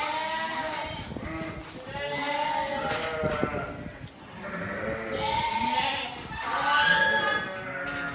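A mob of sheep bleating, many wavering calls overlapping and coming in waves, as the sheep are pushed around the yards by a working kelpie.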